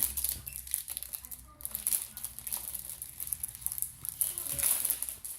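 Packaging from a Lego set being handled and pushed aside, crinkling and rustling irregularly throughout.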